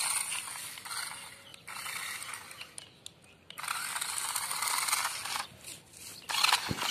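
A battery-powered 4x4 RC rock crawler toy car's electric motor and plastic gearbox whirring as it drives over dirt, in four bursts with short pauses between as the throttle is worked.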